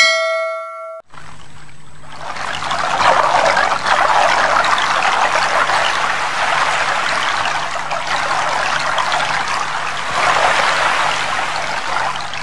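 A short bell-like chime fades out about a second in. Then comes a steady rush of flowing water, with a faint low hum beneath it.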